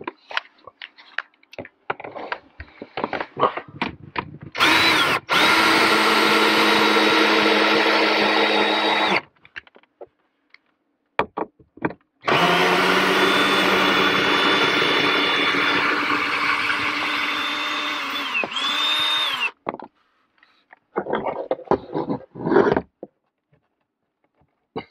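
Ryobi cordless drill running in two long runs of about five and seven seconds. Each time it spins up quickly to a steady high whine. Short clicks and knocks of handling come before, between and after the runs.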